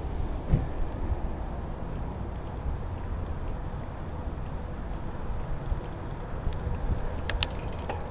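Steady wind rush on the microphone and low rumble from a moving bicycle while riding, with a few sharp clicks about seven seconds in.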